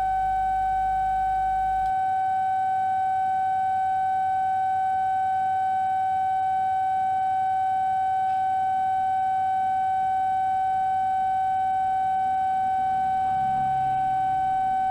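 Transceiver's CW sidetone held as one continuous steady tone during long key-down at 10 watts: the carrier the MFJ 1788X magnetic loop's remote controller needs while it auto-tunes the loop to the new band.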